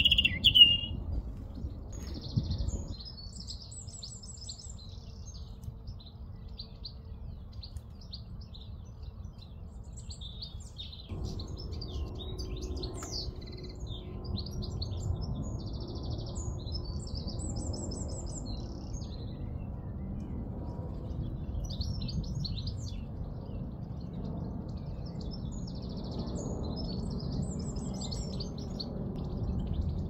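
Small garden songbirds singing and chirping, with one loud, close call right at the start and a short, very high rapid trill that recurs about three times. A steady low rumble of background noise runs underneath.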